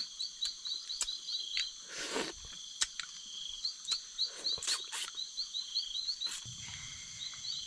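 Forest insect chorus: a steady high-pitched trill with a rapid chirping on top, about five chirps a second, that breaks off a few times. A few sharp clicks and a brief rustle cut in.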